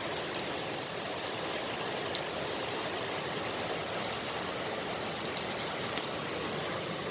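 Steady, heavy rain falling, with a few single drops ticking out now and then.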